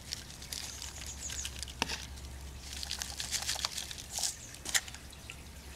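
Potting soil poured from a plastic Solo cup into another cup: a light, irregular patter and rustle of falling soil, with a few sharper clicks.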